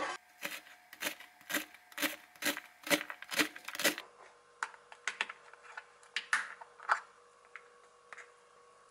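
Kitchen knife chopping onion on a plastic cutting board, a steady knock about twice a second for the first four seconds. After that come scattered lighter clicks and taps as the diced onion is scraped off the board and pressed into a small plastic container.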